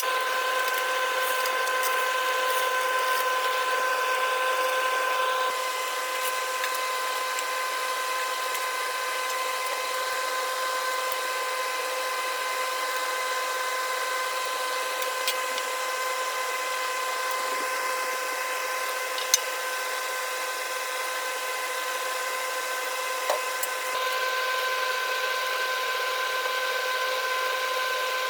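An electric power tool runs steadily at constant speed, a continuous whine over a hiss, with a few sharp ticks scattered through.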